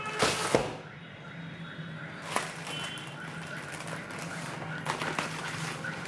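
Plastic courier mailer bag rustling and crinkling as it is set down and handled on a wooden table, with a louder crinkle about half a second in and more around the end as scissors begin cutting the plastic.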